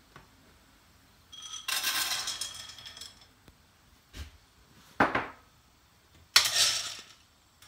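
Shelled corn kernels poured from a cup into a grain moisture tester, rattling for about a second and a half, followed by two sharp knocks and a second, shorter rattle of kernels near the end.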